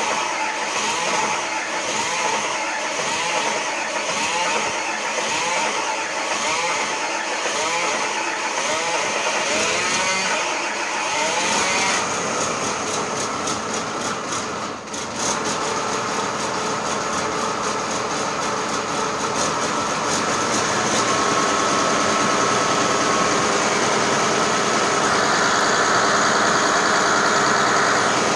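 Diesel engine of a freshly restored Hitachi excavator running steadily and smoking from its exhaust stack. It grows louder in the second half.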